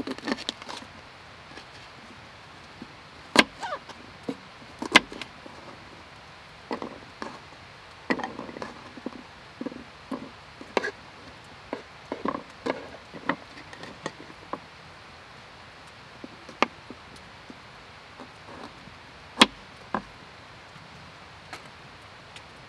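Irregular wooden knocks and clatter of firewood or camp gear being handled and chopped, with three sharp strikes standing out among quieter handling sounds.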